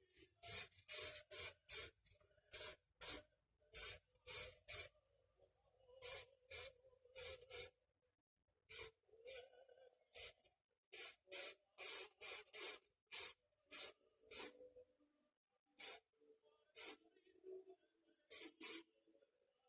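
Black spray paint hissing out in many short bursts onto a masked die-cast model base, in quick runs of several bursts with brief pauses between.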